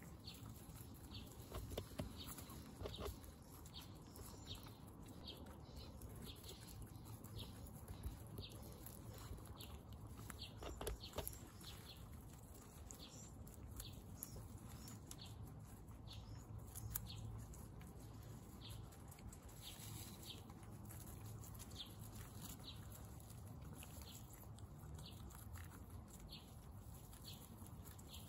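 Guinea pigs feeding on carrot pieces: faint chewing, crunching and rustling, with a few louder clicks. Short, high chirps repeat about once or twice a second throughout.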